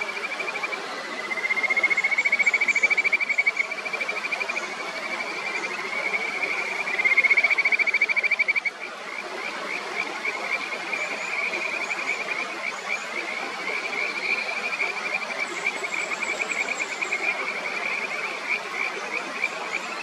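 Kajika frogs calling in rising, rapidly pulsed trills, one after another, over the steady rush of a mountain stream; the loudest trills come about two seconds in and again around seven seconds in.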